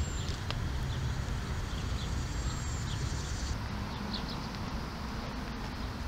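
Outdoor park ambience: a steady low rumble with a few short, scattered bird chirps.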